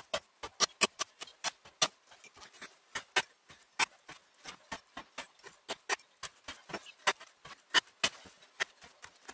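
Toporsib Plotnik No.2 carpenter's axe chopping a 10 mm hemp rope into short pieces on a wooden board. A quick, uneven run of sharp knocks, about three a second, some much louder than others, each one a blade cutting through the rope into the wood.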